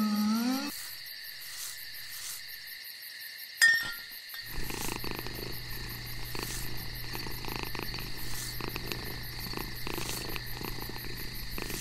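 Cartoon creature sound effects. A low moaning call that slides down and back up ends within the first second, and a sharp click comes about three and a half seconds in. Then a low, steady purr-like rumble starts and keeps going, with faint high steady tones like crickets behind it.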